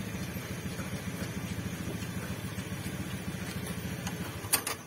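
An engine idling with a steady low, fast-pulsing hum that stops a little before the end. Just after it stops come a few sharp metallic clicks, the loudest sounds here, as metal parts are handled while the new ball joint is fitted.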